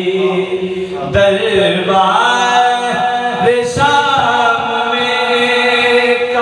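A man singing a naat, an Urdu devotional hymn in praise of the Prophet, into a microphone in a chanting style, with long held notes that bend and waver in pitch.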